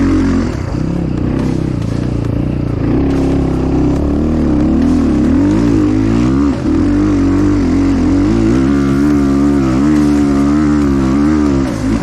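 Enduro motorcycle engine running under way, its revs rising and falling with the throttle, with brief drops in level about halfway and near the end.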